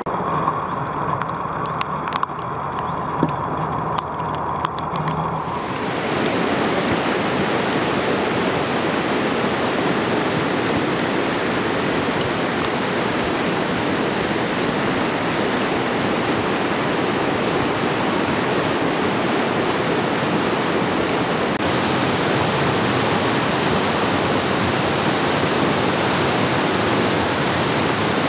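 Fast-flowing floodwater rushing and churning, a dense steady rush that starts abruptly about six seconds in and holds evenly. Before that, a quieter stretch with a faint steady hum and a few light ticks.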